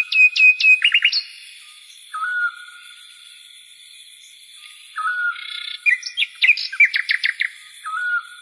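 Songbirds chirping: a short whistled note repeats every two to three seconds, with quick runs of sharp high chirps at the start and again about six seconds in.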